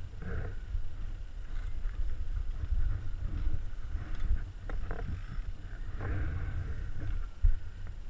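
Low, uneven rumble and rubbing on a body-mounted camera's microphone as a downhill mountain bike lying on rocky ground is handled and lifted, with a few sharp knocks from the bike and rocks.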